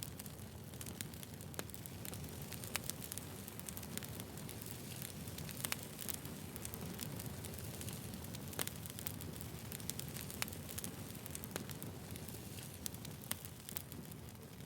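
Campfire burning with a steady low rumble of flames and frequent sharp, irregular crackles and pops of burning wood.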